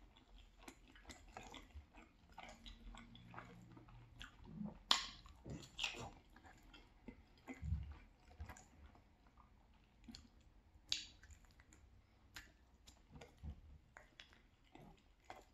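Soft, close-up chewing of cheesy penne pasta, with irregular small mouth clicks and a few sharper clicks.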